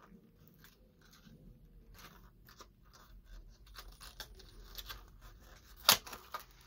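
Clear plastic blister packaging crackling and creaking in the hands as it is pried open, with one sharp snap near the end as the pack gives way.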